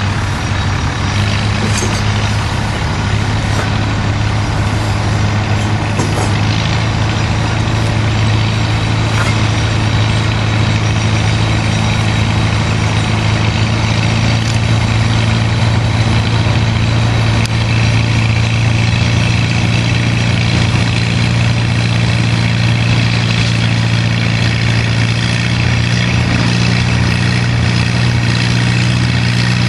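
Antique tractor engine running steadily under load as it pulls a weight-transfer sled, a continuous low drone.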